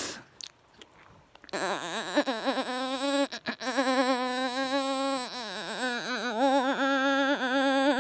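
A sustained reedy tone made at the mouth into a cupped fist. It holds one steady pitch while its tone wavers quickly in a wah-wah fashion, the way a hand opening and closing over the mouth shapes it. It starts about a second and a half in, after a near-silent pause, and breaks off briefly a few times.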